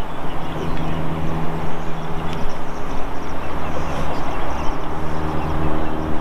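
A steady low motor hum under a constant wash of wind noise.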